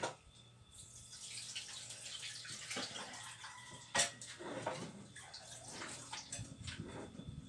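Water splashing and pouring in a metal cooking pot as it is handled, with a sharp knock of the pot about four seconds in.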